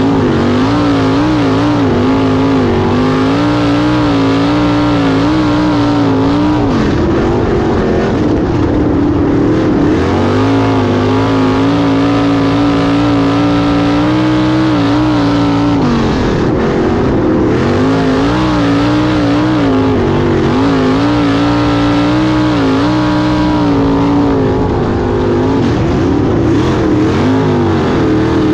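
In-car sound of a wingless 410 sprint car's methanol V8 running at racing speed on a dirt oval. The engine holds a steady high note and dips and wavers a few times, roughly every eight or nine seconds, as the throttle is lifted through the turns.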